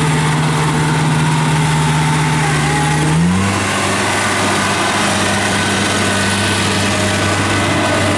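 Diesel engines of Kubota combine harvesters running steadily. About three seconds in the drone changes to a different, slightly higher note and then holds steady.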